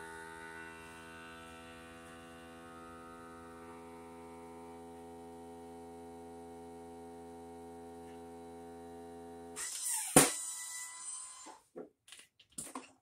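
FoodSaver vacuum sealer's pump drawing the air out of a mason jar through its hose and jar-sealer attachment: a steady hum that cuts off about nine and a half seconds in as the vacuum cycle ends. A sharp click with a short hiss follows, then a few small plastic clicks as the attachment is handled.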